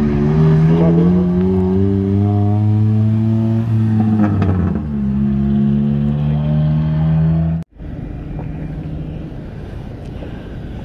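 Acura RSX's four-cylinder engine pulling away under light throttle, its pitch rising steadily, dropping about five seconds in as it shifts, then rising again. The sound cuts out abruptly about three-quarters of the way through, followed by a steady rushing noise.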